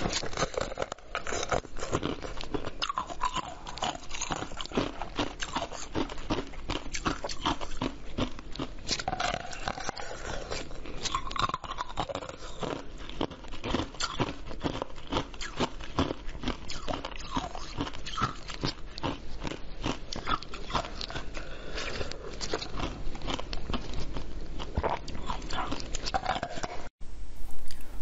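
Close-miked biting and crunching of a solid block of ice with red beans frozen in it: a dense run of cracks and crackles as the ice breaks between the teeth. The sound breaks off briefly near the end, then louder crunching follows.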